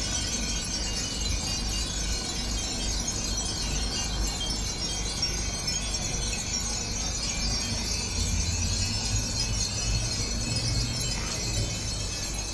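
Many Japanese wind chimes (furin) tinkling together in the breeze, a dense unbroken jingle, with a low rumble underneath.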